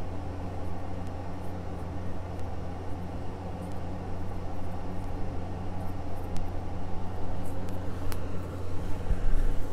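Room air conditioner running with a steady, loud low hum, with a couple of faint ticks near the end.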